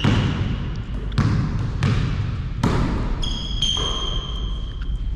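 A basketball being dribbled on an indoor court, five bounces at an uneven pace about a second apart. A long high squeal sounds just at the start and again for about two seconds later on.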